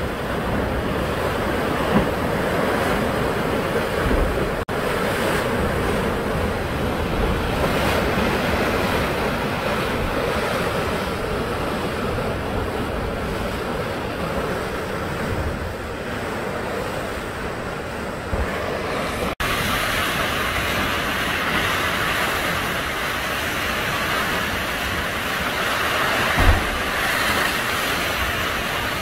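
Sea waves surging and churning through a narrow rock gully by a sea cave: a steady rushing wash of surf, with wind buffeting the microphone now and then. The sound drops out for an instant twice, about five seconds in and past the middle, and is brighter after the second break.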